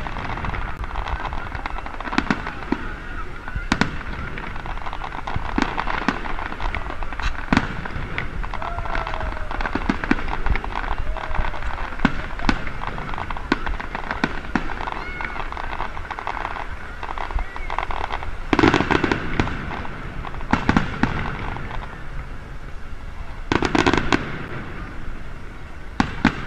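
Aerial fireworks display: shells bursting overhead in repeated sharp bangs and crackling, with louder clusters of rapid bangs a little past halfway and near the end.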